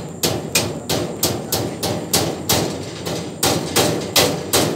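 Hammer blows on the steel frame of a pig farrowing pen, a steady run of sharp strikes about three a second.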